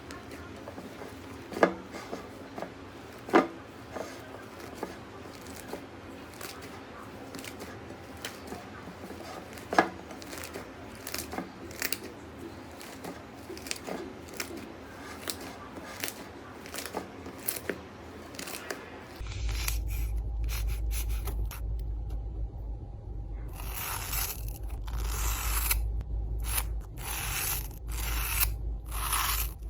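Slime being handled for ASMR: scattered sticky clicks and pops with a few louder snaps. About two-thirds of the way through, the sound changes to a steady low hum under repeated crunchy bursts.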